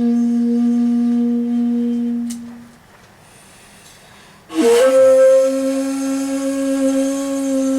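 Solo shakuhachi playing long held notes. A low note fades away about two and a half seconds in; after a pause of about a second and a half, a new, slightly higher note enters with a sharp, breathy attack and a small upward scoop, then is held steadily.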